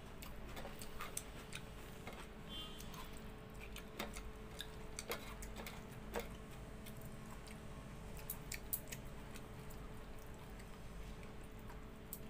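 Close-up eating sounds by hand: scattered small clicks and smacks from chewing and from fingers mashing tomato and mixing soaked rice, at irregular times, over a faint steady hum.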